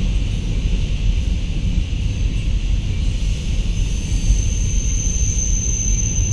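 Freight cars of a passing CN mixed freight train rolling over the rails: a steady, loud rumble, with a thin high-pitched whine that sets in a little past halfway.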